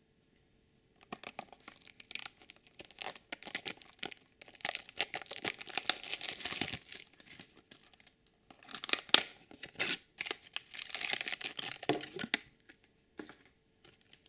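Plastic toy packaging being torn open and crinkled in the hands, in irregular rustling bursts with a pause about two-thirds of the way through.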